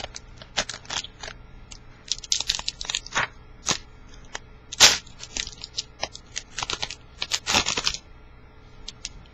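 Plastic wrapper of a football trading-card pack being torn open and crinkled, with the cards handled: a run of sharp crackles and tears over several seconds that stops near the end.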